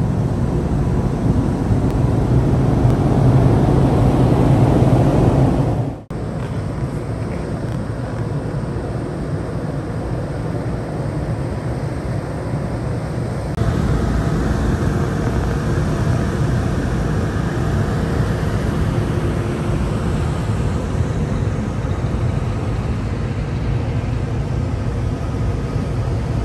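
Steady low rumble aboard a large crude oil tanker underway, its machinery and wind on the deck. The sound shifts abruptly about six seconds in and again about thirteen seconds in.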